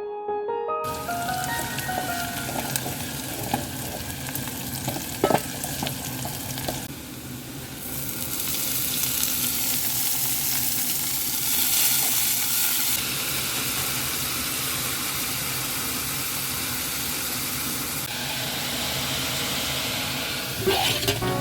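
Food sizzling as it fries in a pan, with a few sharp knocks of a utensil stirring it; the sizzle gets louder about eight seconds in.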